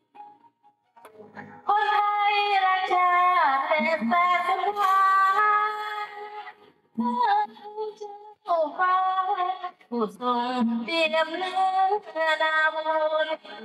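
A woman singing into a microphone in long held phrases with short breaks between them.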